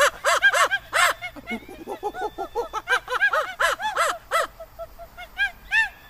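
A monkey-call imitation: a rapid run of short hooting calls, each rising and falling in pitch, several a second, with shrill screeches about a second in and again around three to four seconds. The calls thin out to a few spaced hoots near the end.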